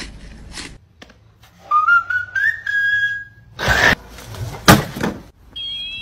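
A long, slightly rising whistle lasting nearly two seconds, followed by two loud bursts of noise. Near the end a steady, warbling high tone sets in.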